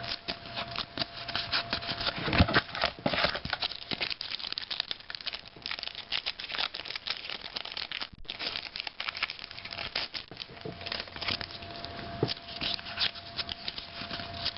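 Trading-card packs being torn open and their wrappers crinkled, with the cards handled and flicked through in between: a dense, uneven run of small crackles and rustles, with a brief lull about eight seconds in.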